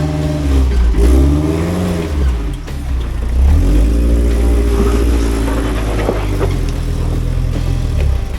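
Off-road rock crawler's engine revving up and down several times under load as it works over rocks, its pitch rising and falling in repeated swells over a steady low rumble.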